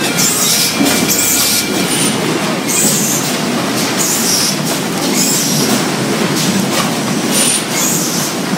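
AG-Pak AP6000 double-wicketed automatic potato bagger and its conveyor running, a loud steady mechanical clatter. Short bursts of hiss come every second or two over it.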